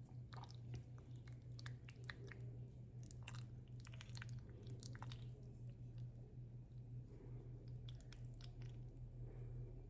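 Faint, scattered soft clicks and wet squishing of a utensil working through a creamy chicken spaghetti casserole, over a steady low hum.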